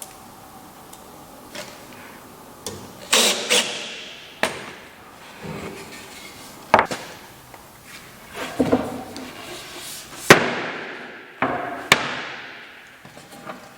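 Irregular sharp knocks and clacks of wood and tools being handled during woodworking, about seven in all, each ringing briefly.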